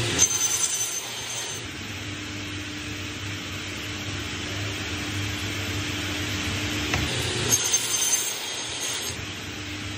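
Salvamac upcut cross-cutting saw cutting through a stack of wooden boards twice: a first cut right at the start and a second about seven and a half seconds in, each lasting about a second and a half with a high whine. The saw motor hums steadily between the cuts.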